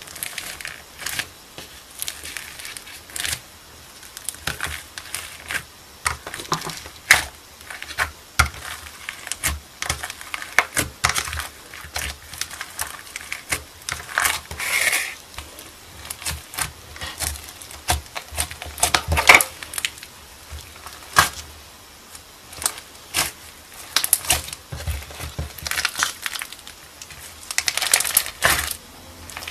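Foam-bead slime (floam) crackling and crunching as fingers press into and knead it, a dense run of irregular small pops.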